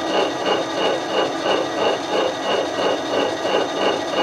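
An end mill in a milling machine cutting along the top edge of welded steel angle iron, cleaning the surface down to height. It is a steady cutting sound with a regular pulse several times a second.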